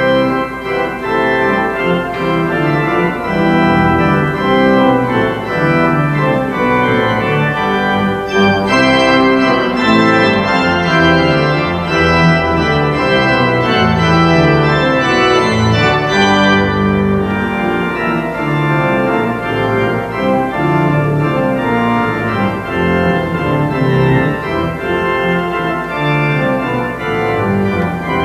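Organ music: an organ postlude played in full sustained chords that change steadily. It starts loudly right at the beginning.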